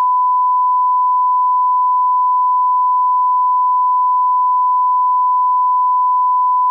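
A 1 kHz broadcast line-up test tone, the reference tone that runs with colour bars: one steady pure pitch that cuts off abruptly near the end.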